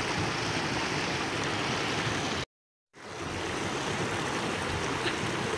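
Shallow river water rushing over rocks, a steady hiss that cuts out completely for about half a second near the middle.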